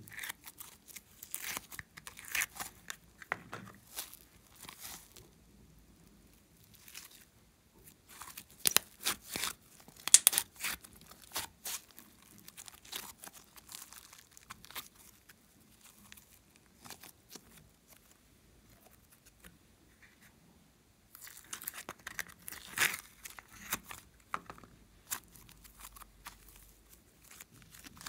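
Glossy slime being worked by hand, peeled out of its tub and stretched, giving runs of many sharp sticky clicks and crackles with quieter spells between.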